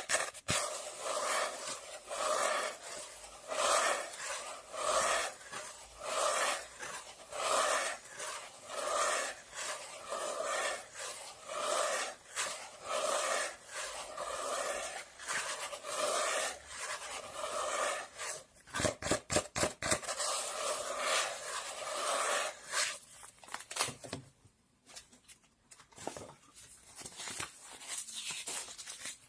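Repeated rubbing strokes, roughly one a second, followed by a quick run of clicks about two-thirds of the way through and a quieter stretch near the end.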